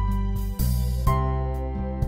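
Background instrumental music: plucked notes over a deep bass line that changes note about every half second.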